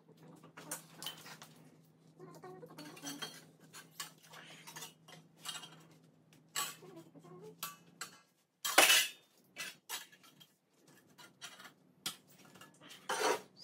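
Irregular clinks, clatters and knocks of metal tools and parts being handled and set down, with the loudest knock about nine seconds in. A low steady hum runs underneath and stops about eight seconds in.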